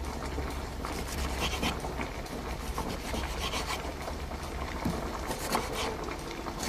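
Vegetables being grated on a hand grater: irregular rasping, scraping strokes.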